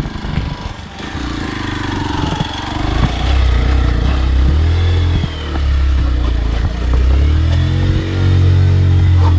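Hero XPulse motorcycle's single-cylinder engine revving under load as it climbs a steep, loose-rock trail. The revs drop briefly twice and pick up again.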